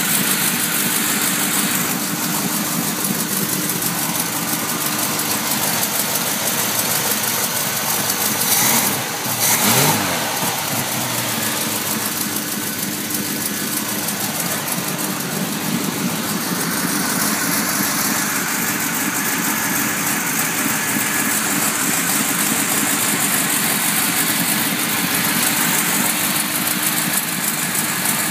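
Freshly rebuilt Chevrolet 350 small-block V8 with headers idling steadily, briefly revved about nine seconds in. The engine has new pistons, cam and heads and is not yet broken in.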